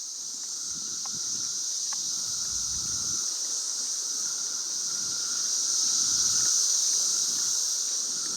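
Night insects, crickets, calling in a steady high-pitched chorus that swells a little past the middle.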